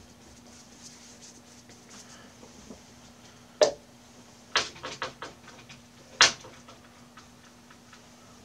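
A few sharp knocks on a hard surface: one, then a quick run of four or five about a second later, then one more, over a faint steady hum.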